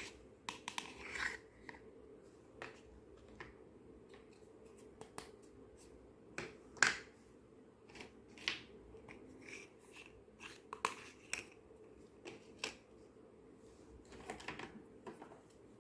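Small plastic toy pieces being handled: scattered light clicks, taps and short rustles, the sharpest click about seven seconds in.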